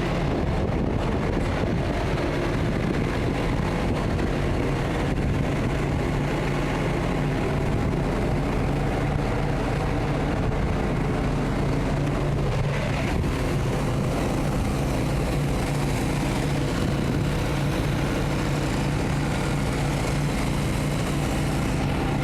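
Engine idling steadily: an even, low, pitched drone that holds at one level throughout.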